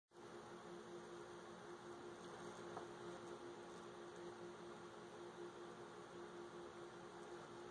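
Near silence: a faint steady hum with even hiss, room tone.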